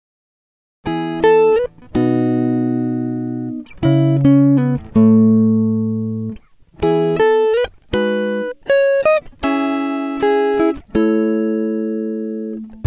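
Background music: a melody of single plucked notes, each fading after it sounds, starting after about a second of silence.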